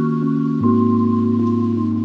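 Background music: sustained keyboard-like chords that change about once a second, with a high note held over them.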